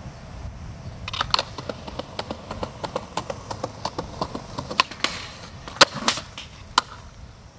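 Skateboard rolling on concrete, its wheels clicking over and over as they cross the pavement. About five seconds in there is a short scrape, then two loud wooden clacks as the board is popped and landed, and a last knock about a second later.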